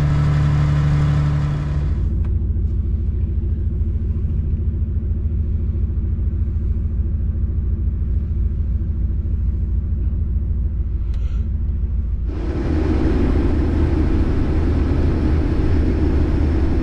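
Case IH 2388 combine harvester running steadily at work in corn, a constant low engine drone. About two seconds in the higher machine noise drops away, and about twelve seconds in it comes back louder and brighter.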